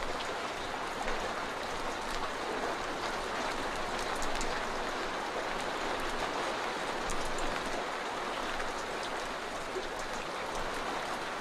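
Steady rain: a continuous even hiss with faint scattered ticks of drops.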